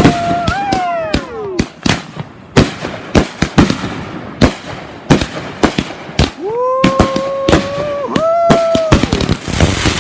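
Consumer fireworks going off in a rapid run of sharp bangs, with held whistling tones, one of which falls in pitch as it fades. A dense crackle builds near the end.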